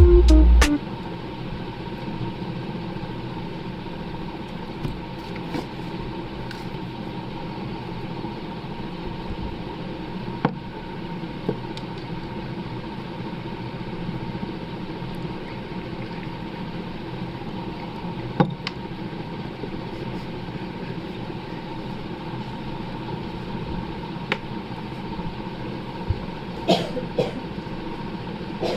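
A steady mechanical hum, like a small motor or engine running, with a few sharp clicks or taps now and then.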